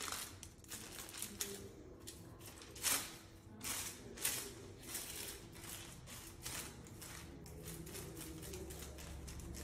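Tint brush stroking and dabbing hair-colour product onto hair laid over a sheet of aluminium foil: a run of faint, irregular scratchy strokes with light foil crinkles, the loudest about three seconds in.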